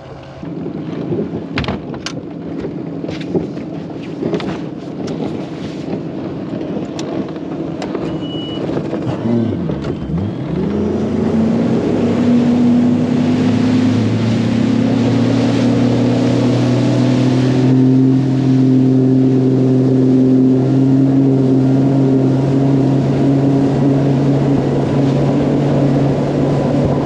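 Mercury FourStroke Pro XS outboard on a bass boat running across open water, with wind and water rushing. About ten seconds in the engine pitch dips and then climbs as the boat speeds up, and it then holds a steady, louder high-speed run. Several sharp knocks come in the first few seconds.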